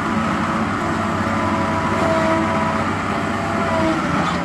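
Caterpillar 950F wheel loader's diesel engine working hard under load as the loader pushes its bucket into a dirt pile, steady and loud, with a whine coming and going over it.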